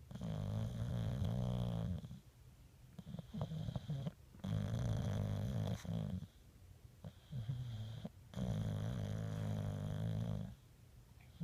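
Snoring: three long snores about four seconds apart, each lasting around two seconds, with quiet breathing between them.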